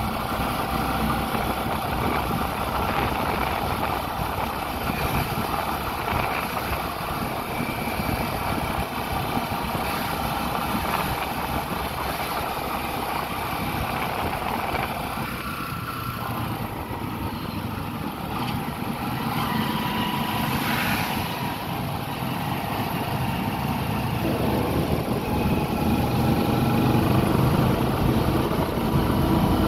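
A vehicle travelling along a road, heard from on board: steady engine and road noise that gets a little louder near the end.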